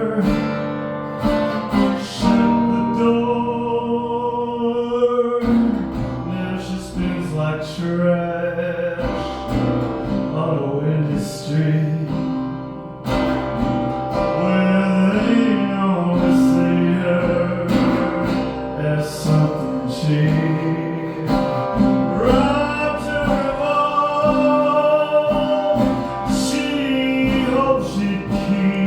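A man singing held notes with acoustic guitar accompaniment.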